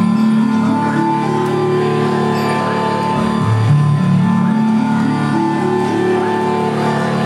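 Chiptune music with sustained electronic tones and a bass line that climbs in steps and starts over about every four seconds.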